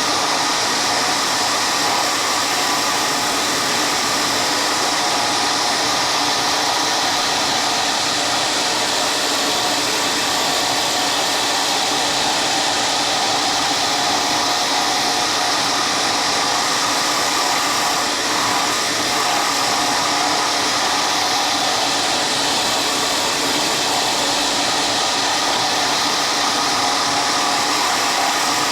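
An electric woodworking machine running steadily without a break, a continuous motor whir with a steady hum.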